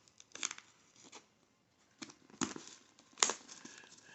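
X-Acto knife cutting and tearing the packing tape and wrapping of a mailed package: a handful of short, separate rips and scrapes with some crinkling, the sharpest a little after three seconds in.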